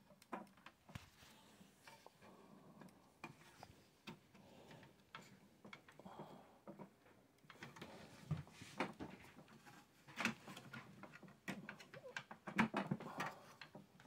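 Scattered small clicks, taps and rustling of hands handling a graphics card and metal PC case parts, with a cluster of louder knocks near the end.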